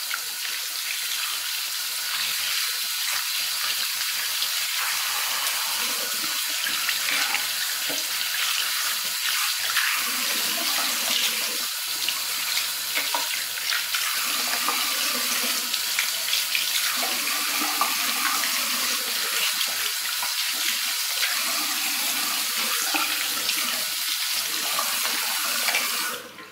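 Tap water running steadily into a ceramic bathroom sink, splashing over plastic hairbrushes and combs being rinsed under the stream. The water stops abruptly near the end as the tap is shut off.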